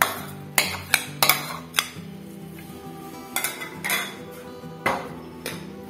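Metal spoon clinking and scraping against ceramic bowls while a paste is spooned out, a string of sharp clinks at irregular intervals, over background music.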